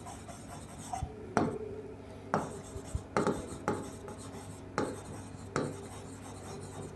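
Marker pen writing on a whiteboard: a series of short, irregular scratchy strokes and taps as letters are written.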